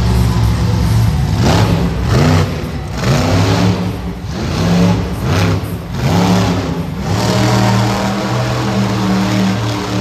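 Monster truck engine revved up and down in quick repeated blips for several seconds, then holding a steadier note near the end.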